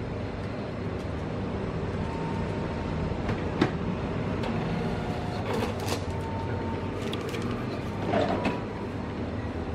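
Steady low background hum with scattered clicks and knocks. A sharp click about three and a half seconds in is the loudest moment, and there is a short rustle near the end.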